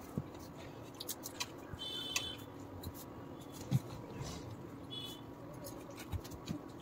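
Faint clicks and soft wet squishes of fingers working water-soaked rice (pakhala) in a steel pot while eating by hand, with a small knock about midway.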